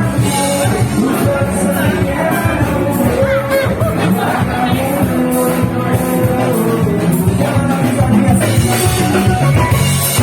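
Live band music with a drum kit keeping a steady beat under a sustained melody line.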